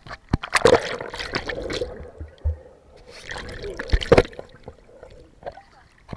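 Swimming-pool water splashing and sloshing around a camera at the waterline as it dips under the surface and comes back up, with louder splashes about a second in and just after four seconds.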